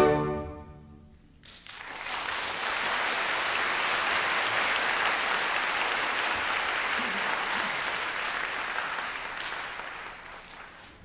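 The last chord of a full orchestra rings out and dies away in the hall. About a second and a half in, an audience breaks into applause, which holds steady and fades out near the end.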